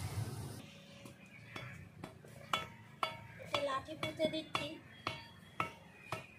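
A passing vehicle fades out at the start, then come repeated sharp metallic clinks, about two a second, each with a short ring, from an iron bar being worked into the soil to set a support stake.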